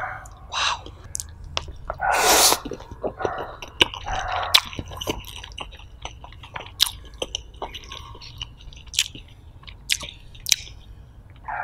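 Close-miked chewing of stir-fried egg noodles, with wet mouth smacks and many sharp clicks, and a louder burst of slurping about two seconds in.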